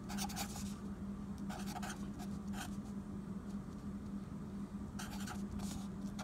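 Felt-tip marker scratching across a paper log sheet in several short bursts of writing strokes, over a steady low hum.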